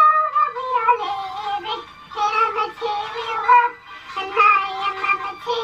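A high singing voice performing a song in sustained, bending phrases, with short breaks between lines.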